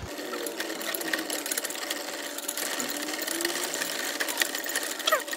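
Wire whisk beating a thick egg-yolk custard in a stainless steel pot, its wires clicking rapidly and steadily against the sides of the pot.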